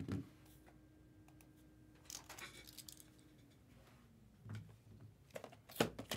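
Sealed cardboard trading-card boxes being handled on a table: a knock at the start, light scraping about two seconds in, then several sharp taps and knocks near the end as a box is picked up.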